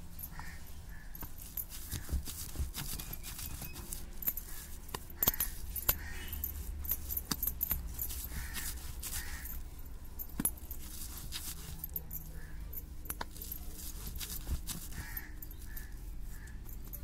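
Stone roller worked back and forth over cooked chana dal and jaggery paste on a flat stone grinding slab (pata). Soft gritty rubbing of stone on stone, with irregular sharp clicks throughout.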